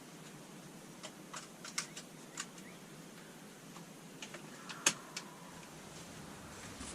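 Scattered light clicks and ticks at irregular intervals over a faint steady hiss, with one sharper click about five seconds in.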